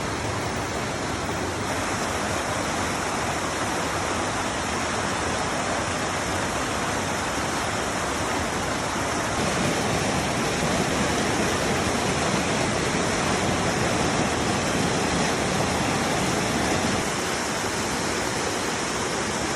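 Waterfall: a steady, even rush of falling water, swelling a little in the middle.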